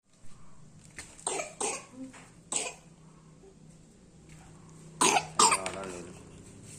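A young boy coughing in short, sudden fits: three coughs in the first three seconds, then two louder ones about five seconds in. It is a dry cough.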